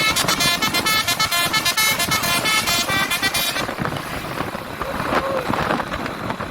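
Truck's 'telolet basuri' musical multi-tone air horn playing a fast run of short notes. It stops a little past halfway, leaving road noise.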